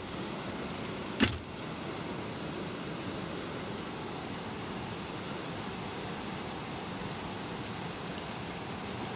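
Steady rushing noise of strong wind ahead of an approaching rainstorm, with a single sharp click a little over a second in.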